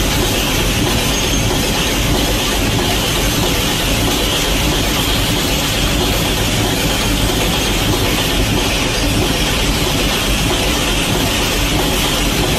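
Loaded open-top coal freight wagons rolling past on the rails, a steady, unbroken running noise of wheels and wagons, with faint thin high squeals now and then.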